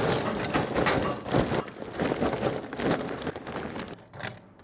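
Lump charcoal poured from a bag into a ceramic kamado grill's firebox: a dense clatter of pieces tumbling in that thins to scattered clinks near the end.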